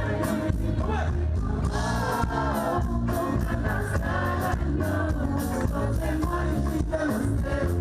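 Live concert music: a singer over a band with a strong, steady bass beat.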